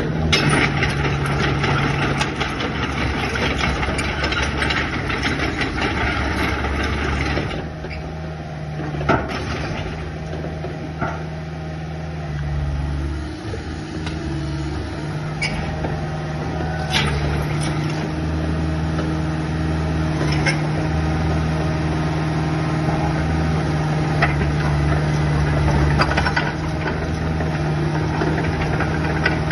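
Diesel engine of a mini excavator running steadily, its load and pitch shifting at times, with a few short knocks.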